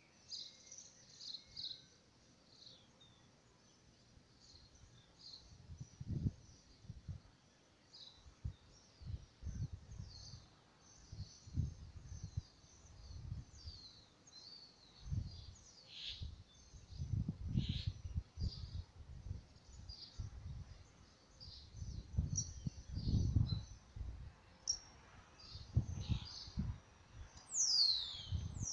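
Small birds chirping again and again, with a quick falling whistle near the end, over irregular low rumbles.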